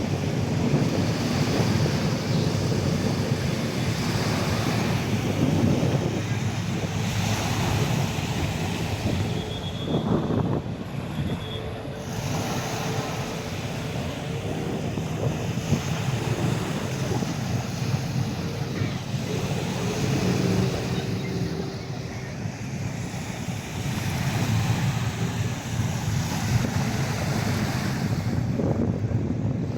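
Wind buffeting the microphone over a steady rushing wash of noise, with faint steady tones in the middle.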